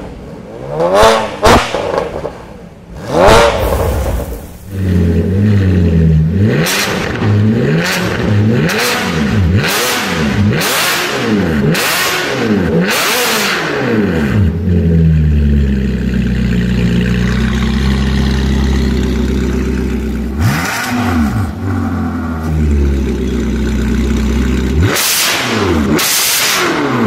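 Ferrari California V8 with an Fi aftermarket exhaust, revved hard in a long series of quick blips, each rising and falling in pitch. It settles to a steady idle in the middle, then is blipped again near the end.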